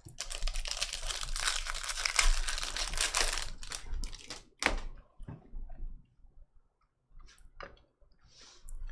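Trading card pack wrapper crinkling and tearing open for about four seconds, then a few light clicks and snaps as the cards are handled.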